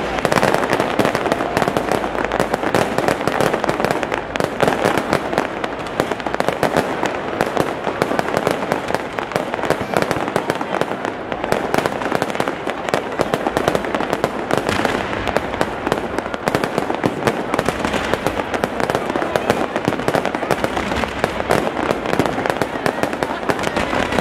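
Large fireworks display in full barrage: a dense, continuous crackling and popping of launches and bursts with no let-up.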